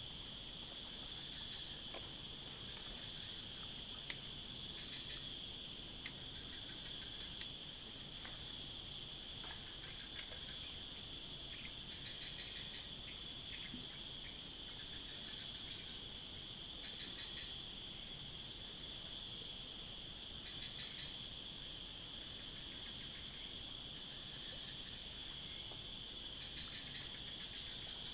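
Forest insects calling: a steady high-pitched drone with bursts of pulsed chirping every few seconds. There are a few faint clicks and one short, sharp high note about twelve seconds in.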